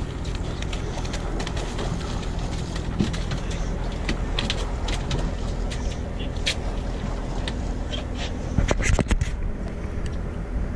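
Boat engine idling with a steady low hum, under scattered clicks and knocks of gear being handled on deck. A short clatter of louder knocks comes about nine seconds in.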